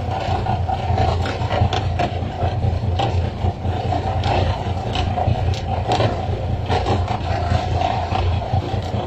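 Fishing boat's engine running steadily under a hiss of water, with frequent sharp slaps as skipjack tuna are flicked out of the sea and land on the deck.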